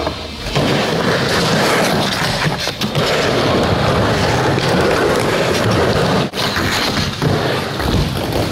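Skateboard wheels rolling steadily over a wooden skatepark ramp, a continuous rough rumble with a brief break about six seconds in.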